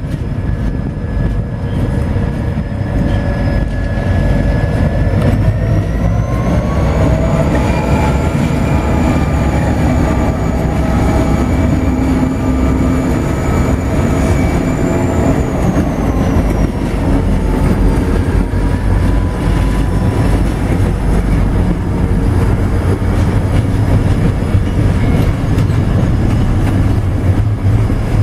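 Three diesel-electric freight locomotives, 81 class 8142, BL class BL28 and 81 class 8166, run past working a long loaded container train. Their engines make a steady heavy rumble with a whine that climbs in pitch, holds, then drops as the locomotives go by, and the container wagons then roll past.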